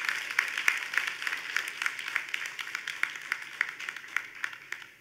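Audience applauding, with many separate hand claps heard, slowly dying away and stopping near the end.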